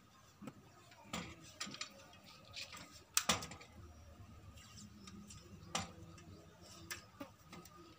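Faint scattered clicks and rustles of hands handling and taping an electrical wire along a bicycle frame, with a sharper crackle about three seconds in.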